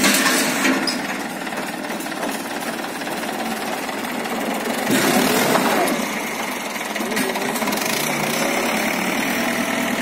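Small tractor's diesel engine running with a knocking clatter as its front loader scoops and lifts a bucket of sand. The engine gets louder and its pitch rises and falls about five seconds in.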